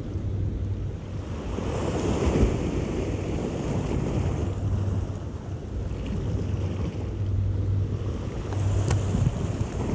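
Sea waves washing and foaming against the shoreline rocks, with wind buffeting the microphone. A single sharp click about nine seconds in.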